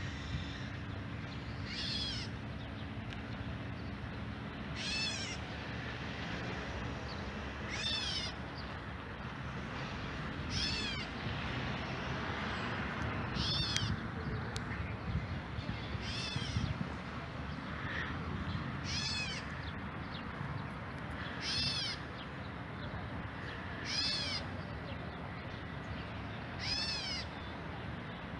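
A bird in a tree giving a repeated whining call, about ten times, one short call every two and a half to three seconds, each rising and falling in pitch.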